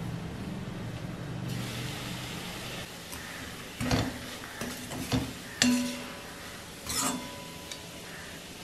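Drumstick leaves sizzling in an aluminium kadai while a metal spoon stirs them, scraping and clinking against the pan several times; the loudest clink, about five and a half seconds in, rings briefly.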